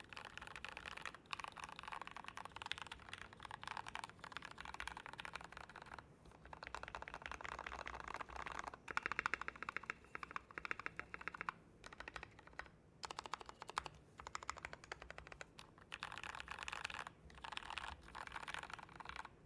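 Mechanical keyboard with Gateron Yellow linear switches in an acrylic Tofu case, typed on in quick runs of keystrokes with short pauses between the runs.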